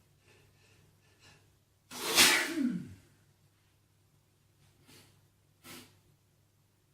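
A man sneezes once, loudly, about two seconds in, after a few short catching breaths; the sneeze ends in a cry that falls in pitch. Two short, fainter breaths follow near the end.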